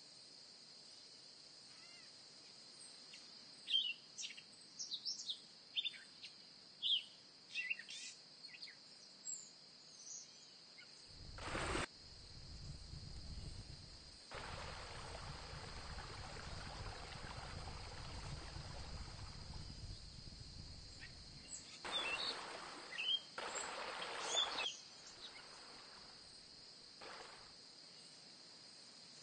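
Faint outdoor ambience: scattered bird chirps and a steady high insect drone, with a stretch of rushing noise through the middle that is the loudest part.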